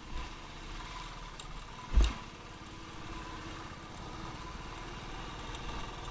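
Royal Enfield motorcycle engine running at low speed, with a single loud thump about two seconds in.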